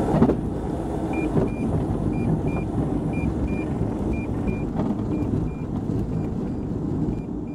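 Continental IO-360 six-cylinder aircraft engine running steadily, with airflow noise, while short high beeps sound in pairs about once a second.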